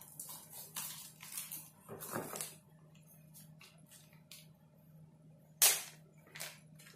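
Packaging and plastic crinkling and rustling in short bursts as a product is unpacked by hand, with one sharp click about five and a half seconds in.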